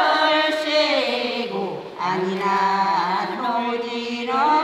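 Women singing a Korean folk song unaccompanied, in long held notes with vibrato. There is a short breath pause about two seconds in.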